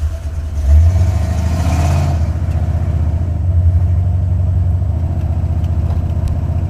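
Buick 455 Stage 1 V8 revved up from idle about a second in, then held at about 2,000 rpm. That is the speed range where the owner hears a driver-side valvetrain tick that he takes for a lifter not pumping up or a pushrod problem.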